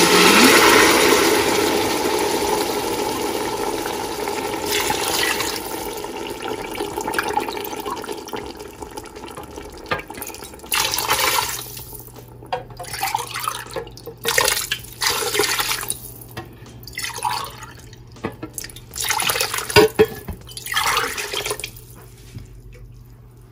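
Water poured from a steel glass into a hot pot of fried mutton, splashing loudly at first and fading over several seconds. From about ten seconds in, the liquid bubbles in short, irregular bursts as it comes to the boil.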